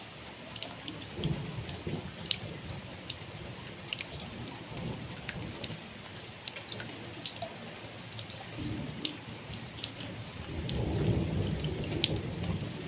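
Steady rain, with rainwater running off a fence rail and splashing into a brimming metal basin, and many sharp drips. A low rumble swells near the end.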